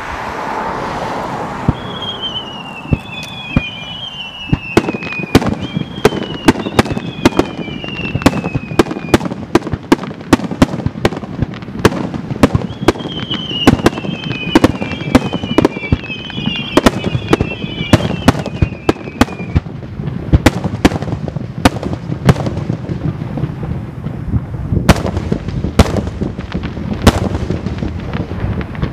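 Aerial fireworks shells bursting in rapid succession: a dense run of sharp bangs, with several whistling shells that glide down in pitch in two clusters, early and around the middle.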